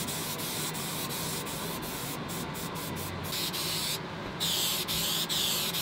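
Aerosol spray paint can hissing as paint goes on, broken by several brief stops between passes. A little past the middle it pauses for about half a second. It then starts again, the hiss swelling and fading with each sweep of the can.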